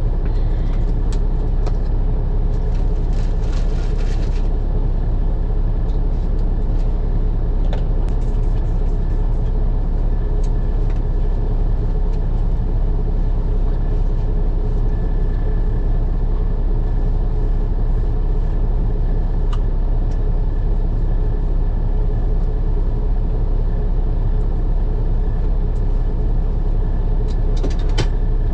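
Steady low hum of an idling semi-truck diesel engine, heard from inside the cab, with a few faint clicks and rustles from cleaning in the cab.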